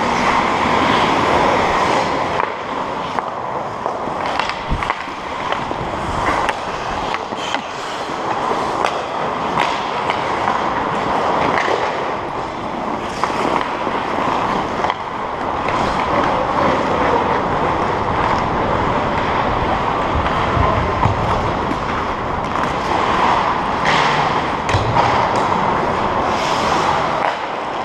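Ice hockey skates carving and scraping across rink ice in play, a steady rushing scrape, with a few sharp clacks, one about five seconds in.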